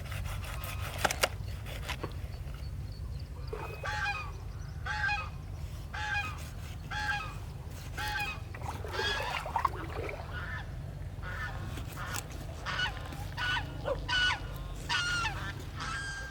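A bird calling over and over, short pitched calls about once a second that come faster near the end, over a steady low hum. A couple of sharp clicks come about a second in.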